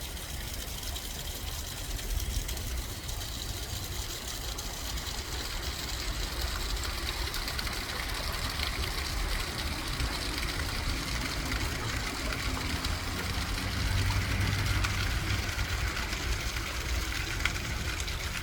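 A stream's water flowing and trickling steadily, with a low rumble underneath that swells about fourteen seconds in.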